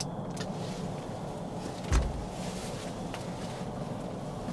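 Handling noise on a hand-held camera: one dull thump about two seconds in and a few faint clicks over a steady low hum and hiss.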